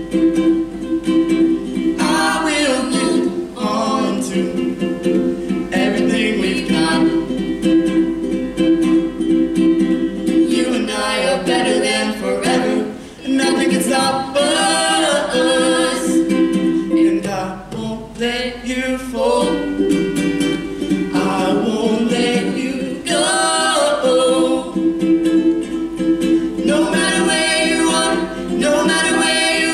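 A man and a woman singing a duet, accompanied by an acoustic ukulele.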